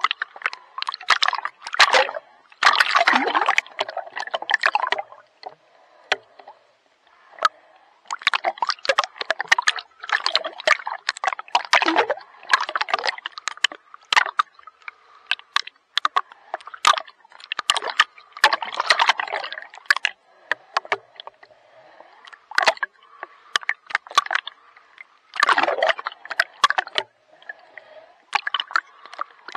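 Water splashing and sloshing close to the microphone in irregular bursts with short quieter gaps, as from a person swimming.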